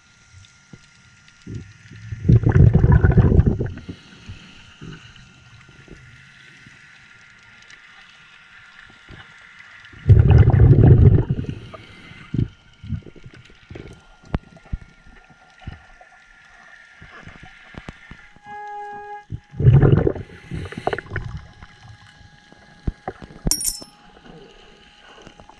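A scuba diver's exhaled bubbles rush from the regulator three times, about eight seconds apart, heard underwater with faint crackling clicks in between. An underwater metal detector (Minelab Excalibur II) gives a short beep about three-quarters of the way through.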